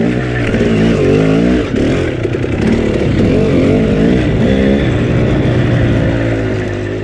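Dirt bike engine revving up and down repeatedly as the rider works the throttle, settling to a steadier note about five seconds in.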